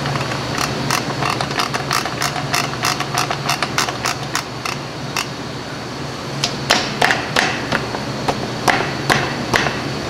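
Quick metallic clicks, about two or three a second, from a screwdriver turning the star-wheel adjuster of a Jeep Cherokee rear drum brake to tension the shoes. There is a pause about halfway through, then a second run of clicks, over a steady low hum.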